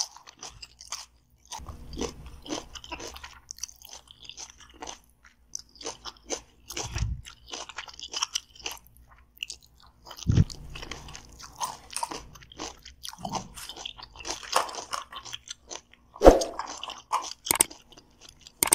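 Close-up eating sounds: someone chewing a mouthful of crunchy fresh salad of cabbage and cucumber, with irregular crisp crunches and wet mouth sounds, and a few soft knocks.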